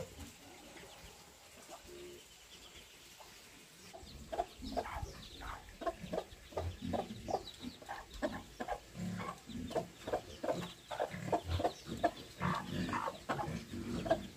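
Mother hen clucking to her chicks in quick short calls, with the chicks peeping high over her; the calls start about four seconds in and keep on.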